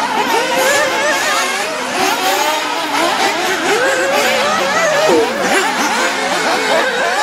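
Several nitro RC buggies' small glow-fuel two-stroke engines revving as they race around the track, several high-pitched whines overlapping and constantly rising and falling with throttle.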